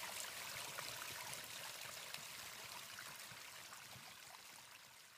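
Faint ambience of a running stream, an even trickling wash that fades out to silence near the end.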